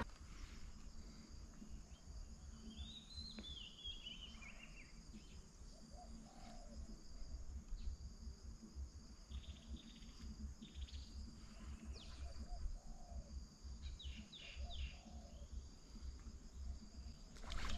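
Faint birds chirping, a short run about three seconds in and a few more short chirps later on, over a steady high-pitched insect drone.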